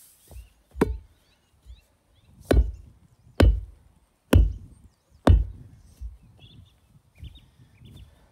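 A steel spade chopping down into firm soil and turf while a hole is dug for a fence stay: five hard strikes about a second apart, then a few lighter ones.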